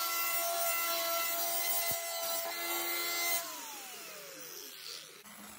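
Angle grinder with a cutting disc cutting through rusted sheet steel at the bottom of a car door, a steady high whine over a harsh grinding hiss, played at double speed. About three and a half seconds in it is switched off and the whine falls away as the disc spins down.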